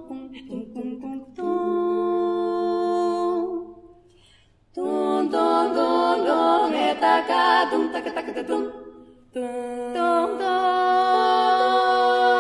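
Three women singing a cappella in close harmony, in a Bulgarian folk arrangement. Short clipped notes at first, then a held chord that breaks off for a brief pause, a busier passage of moving harmonies, and another long held chord near the end.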